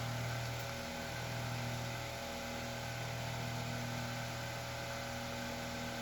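Vintage Galaxy 9-inch table fan with a shaded-pole motor running on high: a steady motor hum with the even rush of air off the blade.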